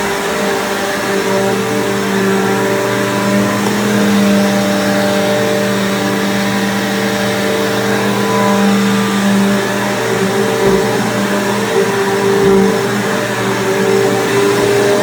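Bissell PowerForce bagged upright vacuum cleaner running steadily. Its motor gives a continuous hum whose pitch wavers slightly.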